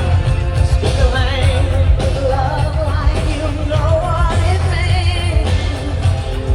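Loud amplified pop-rock music: a singer with a wavering, vibrato-laden voice over a heavy, steady bass.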